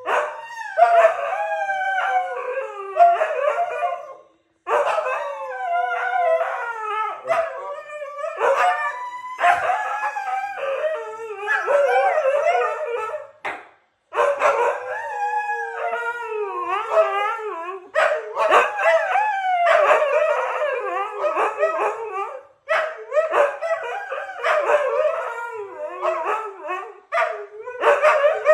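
Two huskies howling together in a duet, their overlapping calls gliding up and down in pitch. There are brief pauses about four, fourteen and twenty-two seconds in.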